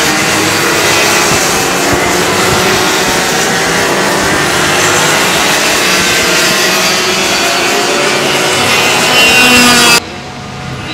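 Racing kart two-stroke engines running at high revs as karts lap the circuit, a buzzing whine whose pitch wavers with the throttle. About ten seconds in the sound drops suddenly to a quieter level.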